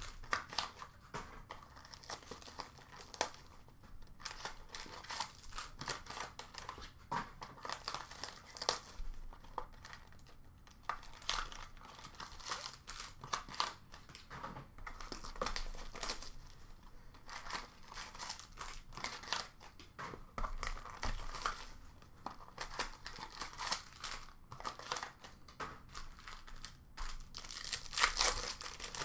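Plastic wrapping crinkling and tearing in irregular crackles as a trading-card box and its plastic-wrapped packs are unpacked by hand.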